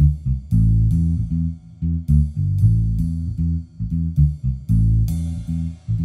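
Intro music with a heavy, busy bass line changing note every fraction of a second over a steady beat with crisp high hits about twice a second.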